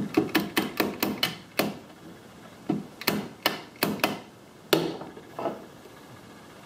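Light, quick taps driving a thin glued wooden plug into a drilled screw hole in a wooden cabinet frame: a run of about eight taps, a pause, then about five more, tailing off into a couple of single taps.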